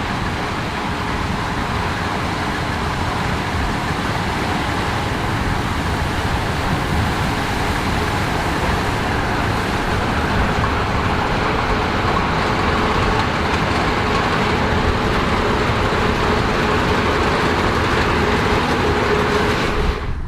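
Case IH 9260 Axial-Flow combine harvester running steadily, a dense machine noise with a faint steady hum, slowly growing louder.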